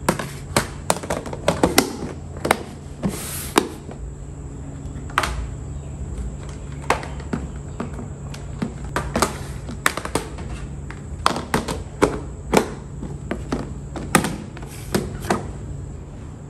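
Clear plastic food storage containers and their lids being handled and set down on a stone countertop: a run of irregular plastic clicks, taps and knocks.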